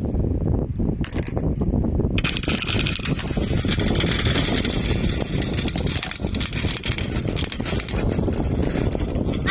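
Many marbles rolling and clattering along a marble run track: a continuous rolling rumble dotted with small clicks as the marbles knock against each other and the track.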